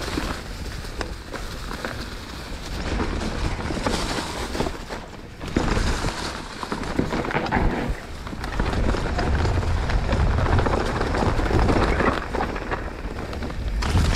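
Mountain bike ridden along a dry dirt trail: tyres rolling over dirt and leaf litter, with frequent knocks and rattles over bumps, and wind buffeting the microphone as a low rumble.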